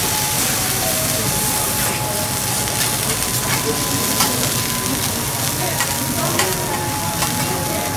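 A thick beef fillet searing on a hot steel teppanyaki griddle: a steady frying sizzle with scattered sharp ticks and pops.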